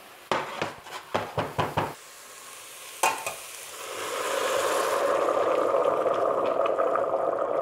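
A spoon scrapes and stirs browned vegetables in a hot stainless steel pot, several quick strokes over the first two seconds, with a metal clank about three seconds in. From about four seconds, vegetable stock is poured into the hot pot and makes a steady rushing hiss as it deglazes the browned bottom.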